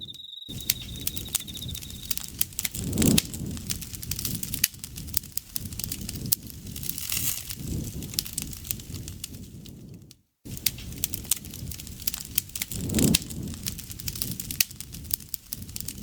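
Campfire crackling and popping steadily over a low rumble of flames, with louder swells at about three and thirteen seconds in. An insect's steady high trill stops about two seconds in, and the sound cuts out completely twice for an instant.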